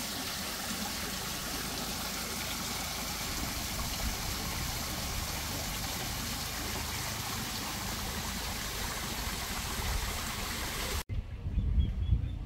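Small garden waterfall trickling down a rock wall into a pond, a steady even splashing. It cuts off suddenly about eleven seconds in and gives way to a louder low rumble.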